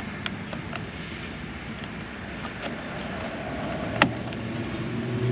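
Plastic mirror clips on a motorcycle fairing being worked loose by hand: a few small clicks, then one sharp snap about four seconds in as a tab lets go, over a steady low background hum.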